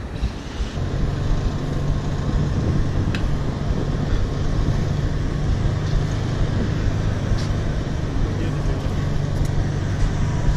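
BMX bike ridden along a paved footpath, heard from the rider's camera: a steady rumble of tyres on pavement mixed with wind on the microphone, heavier from about a second in.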